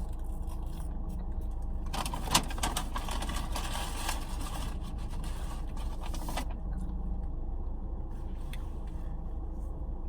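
Steady low rumble of a car engine idling, heard from inside the cabin. From about two seconds in, for roughly four seconds, there is rustling and scraping with a sharp click near the start, typical of a fast-food wrapper or bag being handled while eating.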